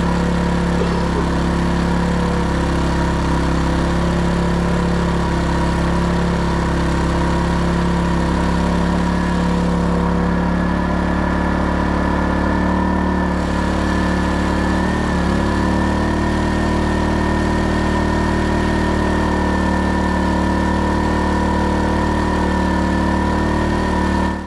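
Erayak 4500PD inverter generator running steadily on propane under about 2,160 W of load while it charges an electric car. A steady high whine sits over the engine, and a second, higher whine joins about ten seconds in.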